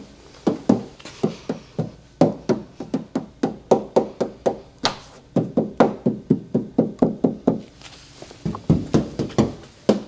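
Knuckles rapping on the sheet-metal fender and door panels of a 1990s Ford Thunderbird: quick knocks, about three or four a second, each with a short ring. This is the body being checked for hidden filler (Bondo) and dents.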